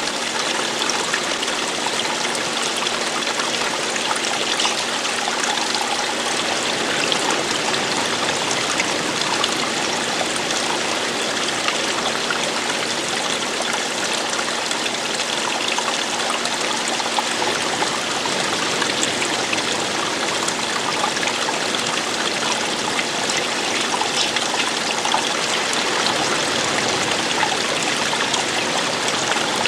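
Running water flowing and falling in a steady, unbroken rush with fine trickling.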